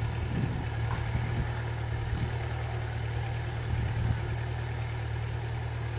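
Excavator's diesel engine idling with a steady low hum, with a few light knocks of work over it, the clearest about four seconds in.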